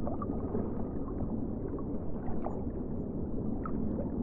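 Water sloshing and gurgling, with small scattered clicks.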